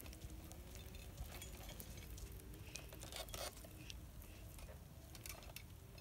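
Faint whine from a hoverboard's hub motors, its pitch wavering up and down as the board weaves, with scattered light clicks and taps.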